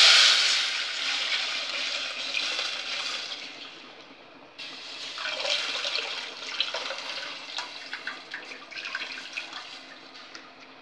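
Spiced rasam mixture poured into a steel pot of hot tempering oil with mustard seeds, fenugreek and dried red chillies: a loud hiss and splash at the start that fades over a few seconds. About halfway a second, weaker spell of sizzling and crackling follows as more is added to the pot by hand.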